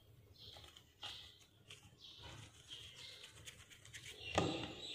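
Faint soft sounds of hands pulling and pinching samosa dough into small balls on a wooden board, with one louder soft thump about four and a half seconds in. A faint steady high tone comes in behind it from about three seconds in.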